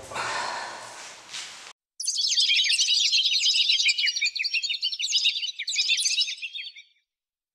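Many small birds chirping in a dense, quick chorus of high-pitched notes, as at dawn. It starts about two seconds in, after a moment of faint room noise, and cuts off abruptly near the end.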